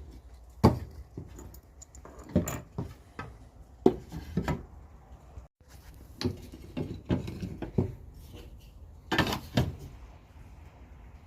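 Grill brushes being taken apart by hand: irregular knocks, clacks and scraping as the handles are worked off the brush heads, the loudest clatter near the end.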